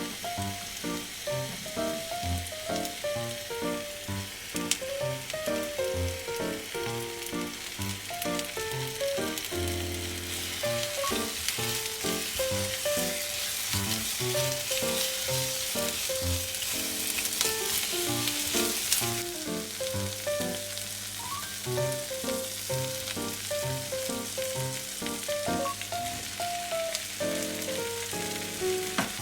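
Food sizzling in a hot pan, the sizzle louder for about eight seconds in the middle, under background music with a light melody.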